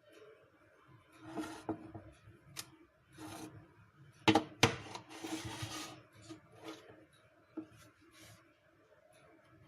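Objects being handled: rubbing and scraping with two sharp clicks about four and a half seconds in, then a brief scraping rustle, over a faint steady hum.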